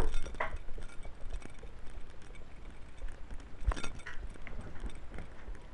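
Rustling and scattered small clicks and knocks of a cat's collar camera rubbing and moving against the cat, with one sharper click about two thirds of the way through.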